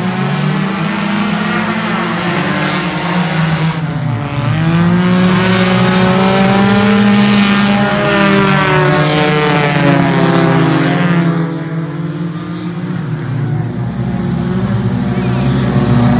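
Several small compact-car race cars running hard around the track. Their engine notes rise and fall as they pass one after another, loudest and most crowded from about four to eleven seconds in.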